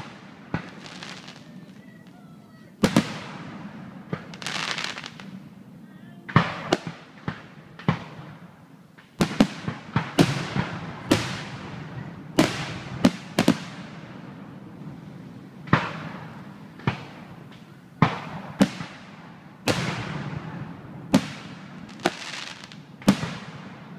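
Aerial firework shells bursting one after another: about twenty sharp bangs at uneven gaps, each trailing off in a hiss and crackle.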